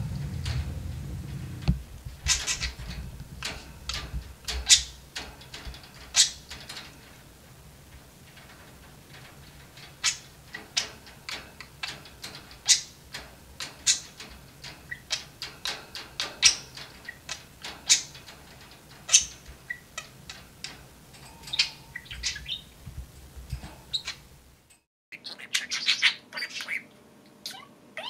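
Budgerigars chirping: a steady run of short, high chirps, about two a second.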